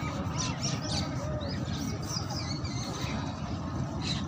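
Open-air ambience: steady low background noise with small birds chirping in short high calls over it.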